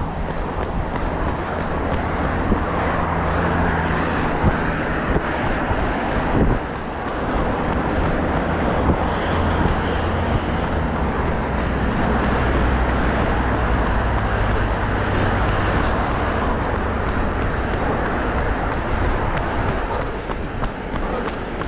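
Motor vehicle engine running with steady road and tyre noise, the low engine hum shifting in pitch a few times.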